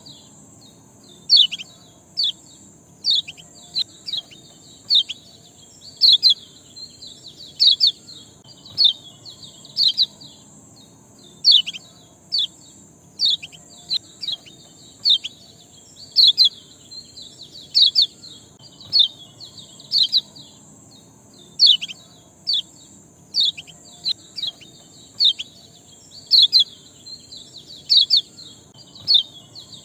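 A small songbird calling in repeated short, sharp chirps that slide downward, given in quick clusters about once a second, over a steady high hiss.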